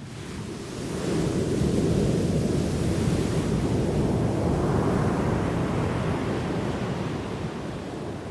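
An ocean wave breaking and washing in: the rush of surf swells about a second in, then slowly dies away over the last few seconds.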